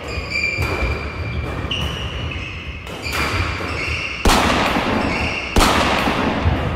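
Badminton doubles rally: rackets hitting the shuttlecock, with short squeaks of court shoes and footfalls on the wooden floor. A hard jump smash cracks about four seconds in and another loud hit follows a second later, both ringing on in the hall.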